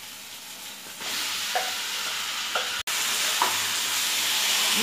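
Marinated chicken pieces hitting hot oil with fried onion and tomato, the sizzling jumping up about a second in and growing. A wooden spatula stirs the chicken while it fries. The sound cuts out for an instant near the middle.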